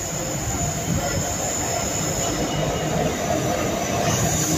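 Class 66 diesel freight locomotive passing close by on the platform road: a steady, dense engine and wheel-on-rail noise that brightens about four seconds in as the locomotive draws level.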